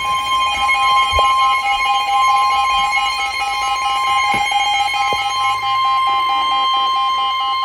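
Emergency Alert System attention tone announcing a severe thunderstorm warning: a loud, steady high electronic tone with a second tone beeping rapidly over it.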